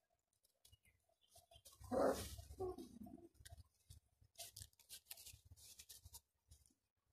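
Gull Terr (Gultair) puppies playing in dry straw: one puppy gives a short, two-part whining cry about two seconds in. Faint rustling and crackling of straw under their paws follows.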